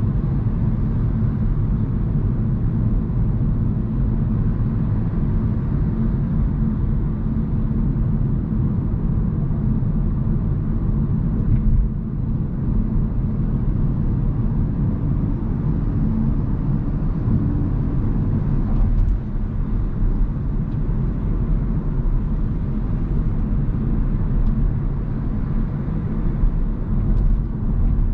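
Hyundai Kona Hybrid being driven: a steady low rumble of road and tyre noise with a faint steady hum.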